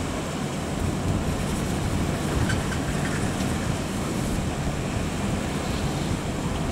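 Diesel engines of a truck-mounted crane and mini excavator running: a steady low rumble.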